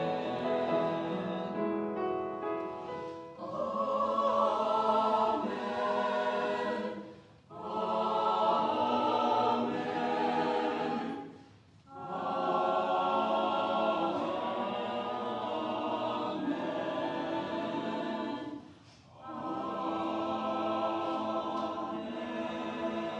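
A choir singing in sustained phrases, with brief pauses between phrases about 7, 12 and 19 seconds in.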